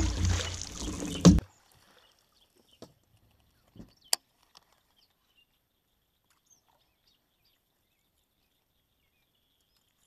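Water splashing and knocking as a hooked bass is netted beside the boat, ending in a loud thump about a second and a half in. Then it cuts to near silence with a few faint clicks.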